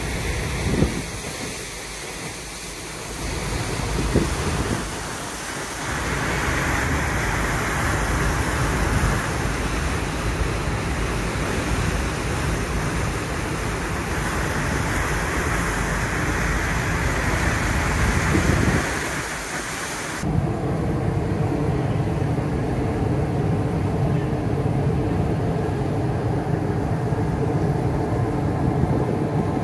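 Steady rushing of wind and the ship's wake on a ferry's open deck, over the low rumble of its engines. About twenty seconds in it cuts abruptly to a steadier low engine drone with a hum of several steady tones.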